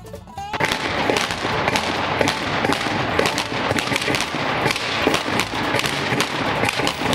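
Revolvers firing blanks in a staged Old West street gunfight, many shots in quick, overlapping succession. Background music cuts off about half a second in, just before the shooting starts.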